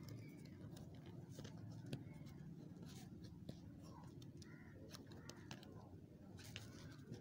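Near silence: a faint steady background hum with scattered soft ticks and scrapes.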